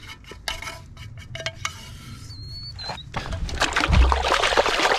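A utensil clicking and scraping against a small metal camp pan, then water splashing and swishing as a hand moves through shallow lake water in the second half, with one heavy splash near the end.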